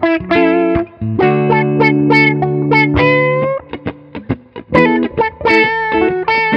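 Two electric guitars jamming through a Mu-Tron Micro-Tron IV envelope filter, whose sweep gives picked notes an auto-wah quack. One guitar holds a chord from about a second in while the other plays single-note lines over it.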